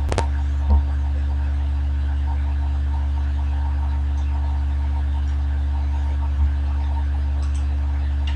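Steady low electrical hum, like mains hum picked up in the recording. A sharp click comes just after the start, and two soft low thumps follow, one under a second in and one near the end.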